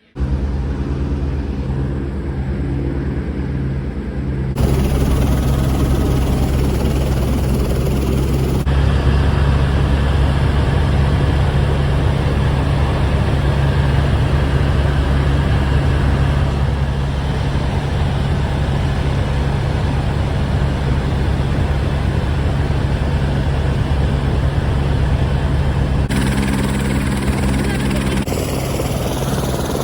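Helicopter engine and rotor running steadily, a loud continuous drone with a deep hum, its tone changing abruptly several times.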